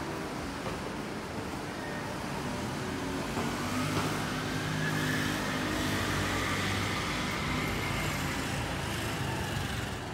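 Road traffic at a street crossing, with a motor vehicle's engine passing close by. It builds from about four seconds in, holds, and fades just before the end.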